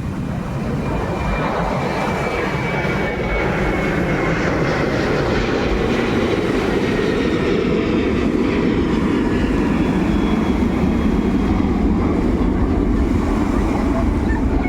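Steady engine drone mixed with a rushing noise, with a faint high whistle that falls slightly in pitch early on.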